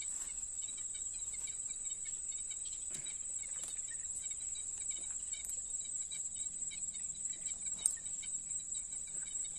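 Steady high-pitched insect chorus, with a single sharp click near the end.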